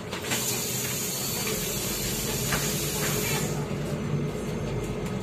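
Compressed air hissing from a MAZ-203 city bus's pneumatic system for about three seconds, then cutting off sharply, over the low steady hum of the bus's engine.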